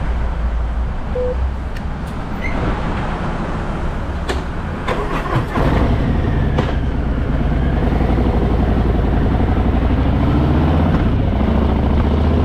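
Harley-Davidson Fat Boy's V-twin engine idling, with a couple of sharp clicks, then pulling away about six seconds in, the engine note getting louder and rising in pitch as the bike gathers speed.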